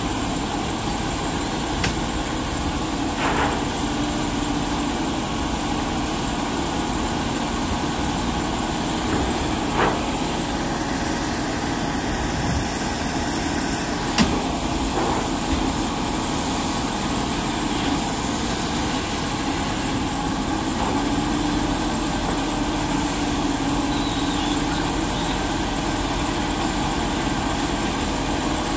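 Heavy tow truck engines running steadily under load as they winch an overturned box truck upright. A few short knocks sound through it, the sharpest about halfway through.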